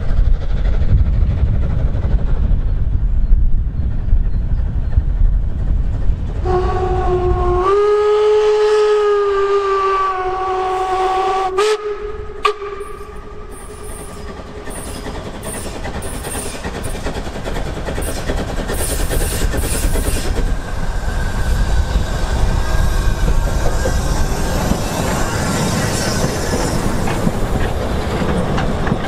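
A low rumble, then a narrow-gauge steam locomotive's whistle sounds for about five seconds as several notes at once, rising slightly and falling. The steam train then draws nearer and passes, its running noise and the clatter of the coaches building to the end.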